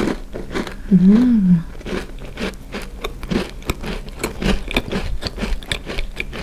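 Close-miked chewing of a crisp sesame cookie: many small crunches in quick succession. About a second in there is a short hummed "mm" that rises and falls.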